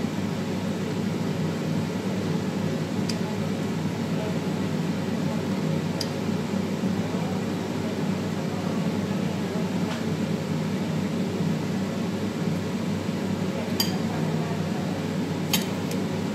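Steady hum of kitchen ventilation machinery, with a few light clinks of a basting brush against a small bowl and a metal tray, the sharpest near the end.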